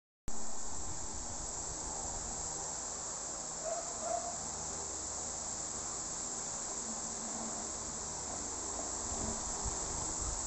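Steady high-pitched drone of insects. It comes in after a brief gap at the start.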